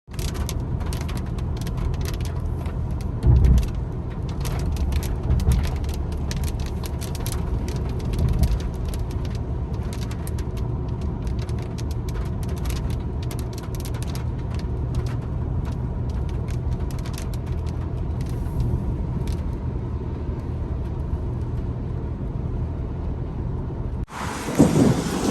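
Rain with many separate drop hits ticking irregularly over a steady low rumble. About a second before the end it cuts sharply to a louder rushing noise.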